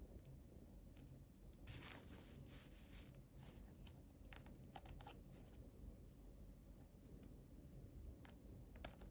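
Near silence with faint, scattered small clicks and a short rustle about two seconds in: small toy packaging and pieces being handled.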